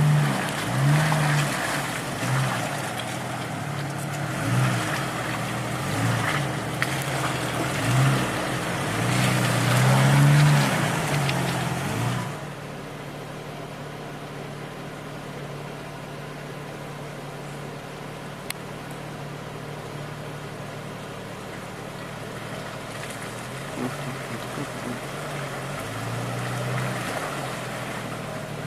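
Jeep engine revving up and down repeatedly under load while off-roading, then settling to a steadier, quieter run about twelve seconds in, with a few more revs near the end.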